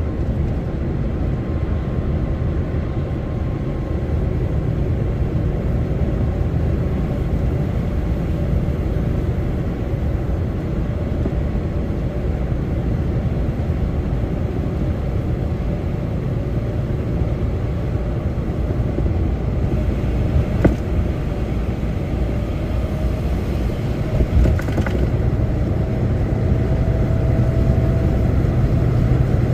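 Steady low rumble of a lorry's engine and road noise inside the cab while driving, with two short clicks late on.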